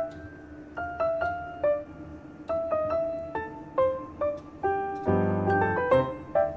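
Background music: a gentle piano melody of single struck notes that ring and fade, with a fuller run of notes and low chords about five seconds in.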